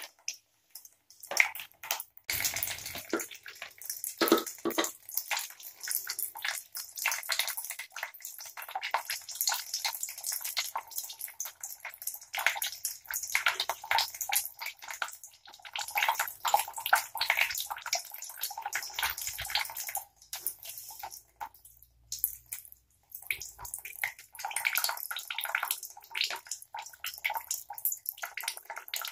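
A thin stream of water trickles and drips from an open copper supply-pipe stub, with brief lulls along the way. This is leftover water draining from the supply line after the house water has been shut off.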